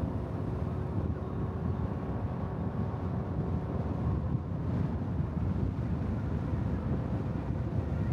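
Wind buffeting the microphone of a camera clamped to the outside of a moving car, over a steady low road-and-tyre rumble. A faint steady hum sits underneath and fades about halfway through.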